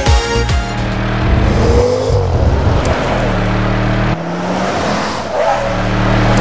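A car driving past, engine and tyre noise, with a steady musical backing underneath. The car sound cuts off abruptly about four seconds in, then picks up again.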